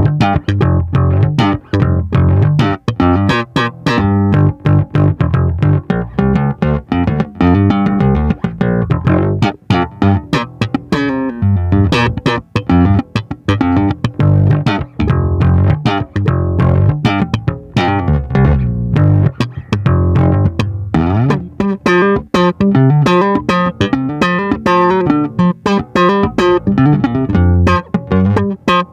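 Yamaha ERB 300 II electric bass with P/J pickups playing a fast run of plucked notes: a busy bass line with many quick attacks and a strong low end.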